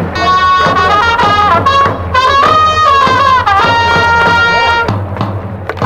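Trumpets of a baseball cheering section playing a batter's cheer melody in held and stepping notes, with a short break about five seconds in before the tune resumes.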